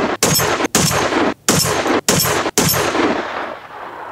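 Five shots from a Barrett M82A1 .50 BMG semi-automatic rifle in quick succession, about half a second apart, each cut off abruptly by the next. The last shot rings out and fades away near the end.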